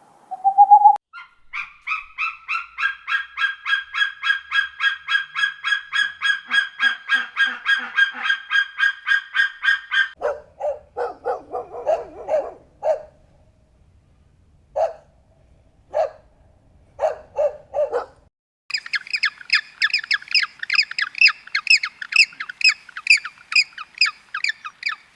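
Three runs of animal calls in succession, likely birds. First comes a fast run of repeated pitched calls, about four to five a second. Then come lower calls with pauses between them, and finally another fast run of higher, sharper calls.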